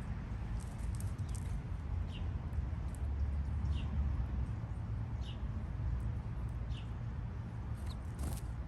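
Garden ambience with a steady low rumble and a short, high, falling chirp repeating about every second and a half, with a few faint clicks.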